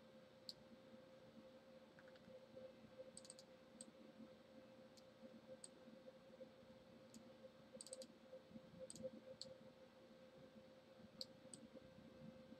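Faint computer mouse button clicks, a dozen or so scattered irregularly, some in quick pairs, over a low steady electrical hum in an otherwise near-silent room.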